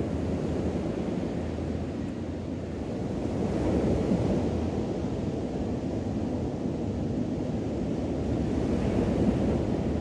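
Ocean waves washing onto a sandy beach, the surf noise swelling a few seconds in and again near the end, with wind on the microphone.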